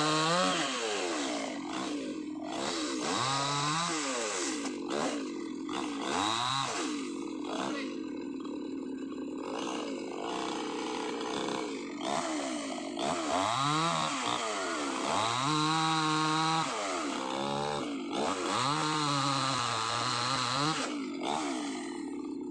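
Two-stroke chainsaw cutting brush and palm fronds, revved up and down in repeated short bursts between drops back to idle. The longest burst at full throttle is held for about a second and a half a little after midway.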